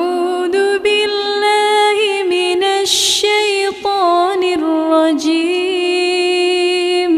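A single voice chanting Qur'anic recitation in a slow melodic style, with long held notes and ornamented turns in pitch. A brief hissing consonant comes about three seconds in.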